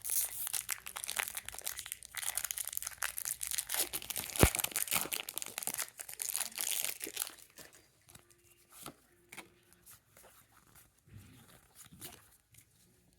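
Foil Pokémon booster-pack wrapper crinkling and tearing open, with one sharp snap about four and a half seconds in. After about seven seconds it drops to only faint scattered ticks.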